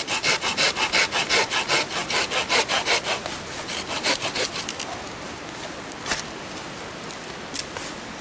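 Hand saw, a folding saw, cutting through a thin wet branch in quick back-and-forth strokes, about five a second, strong at first, then weaker until they stop about five seconds in. Two short knocks follow near the end.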